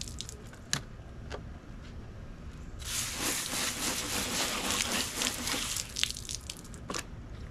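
Garden hose spray nozzle spraying water over a cleaned fish held in the hand, the water splattering onto the concrete below. The spray hisses on about three seconds in and stops about three seconds later, with a few sharp clicks and drips before and after.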